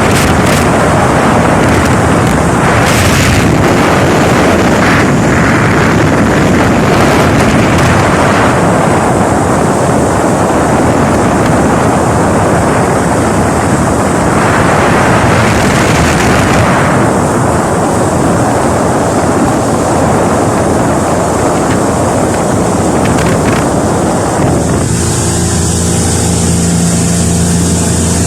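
Motorboat under way: loud wind buffeting the microphone over the rush of water and the outboard engine. About 25 seconds in, the wind noise drops back and the engine's steady hum comes through clearly.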